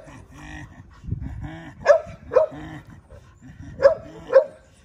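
A dog barking: two barks about half a second apart, then another such pair about two seconds later.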